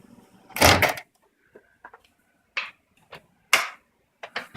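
Handling noises: an irregular string of clicks and knocks, the loudest a short clattering burst just over half a second in.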